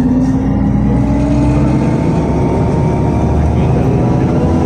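Weichai WP7NG280E51 compressed-natural-gas engine of a Volgabus-5270.G4 city bus pulling under load as the bus moves off, heard from inside the passenger cabin: a steady engine drone with a thin whine above it.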